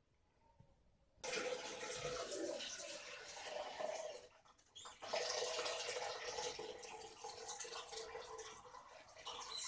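Water sloshing and splashing in a steel bowl as hands wash curry leaves in it, starting about a second in, with a short pause a little after four seconds.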